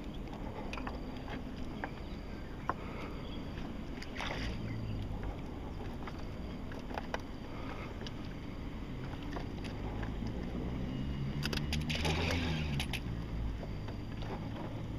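Fishing rod and reel worked against a hooked giant snakehead: low, steady handling noise with scattered sharp clicks, and a louder rushing burst near the end.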